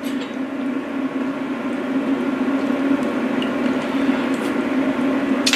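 Large stainless-steel pot of coconut chicken curry simmering on the stove over a steady low hum, with a brief click near the end.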